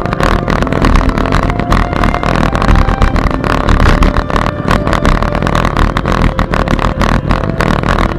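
Steady rush of wind buffeting the microphone of a camera mounted on a moving bicycle, with frequent small rattles and knocks from the bike and mount over the path surface.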